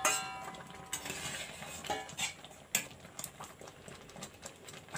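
A steel ladle stirring semolina in water in a heavy uruli pot. A metal clink rings out at the start and fades within about a second, followed by scattered taps and scrapes of the ladle against the pot.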